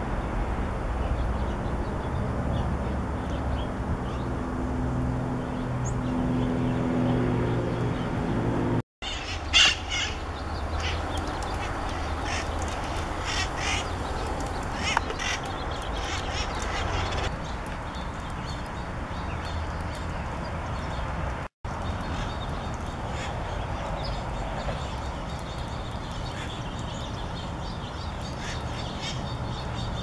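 Wild parrots squawking in the trees: repeated short, harsh calls, the loudest about ten seconds in. A steady low rumble runs under the first third.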